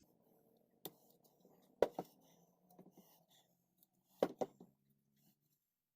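A few sharp light knocks and clicks of small objects being handled, over a faint low steady hum.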